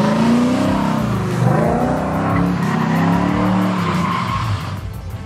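Chevrolet Camaro drifting: the engine revs rise and fall over and over while the tyres squeal through the slide, fading a little near the end.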